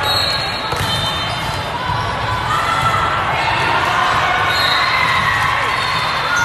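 Echoing noise of a busy volleyball gym: many voices chattering and calling in a large hall, with the thuds of volleyballs bouncing on the hard court floor.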